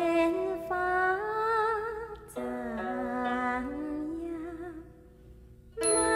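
A woman sings a slow, wavering melody of a Taiwanese Hakka song over soft held instrumental chords. The music drops low about five seconds in, then comes back fuller and louder just before the end.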